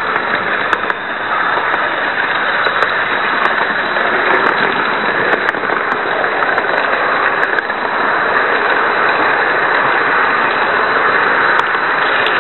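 Model train of Märklin coaches hauled by a HAG Re460 locomotive, heard from a camera riding on board: a steady rushing rattle of wheels and motor running on the track, with scattered sharp clicks.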